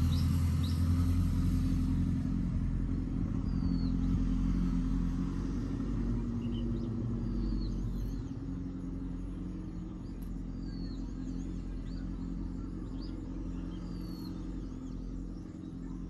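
Low, steady engine rumble of a motor nearby, loudest at first and gradually fading over the first half, then holding quieter. Small birds chirp briefly now and then.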